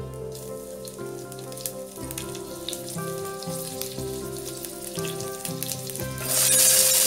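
Cumin seeds and green chili pieces crackling in hot ghee in a stainless steel saucepan. About six seconds in, chopped pumpkin goes into the pan and the sizzle becomes a loud burst.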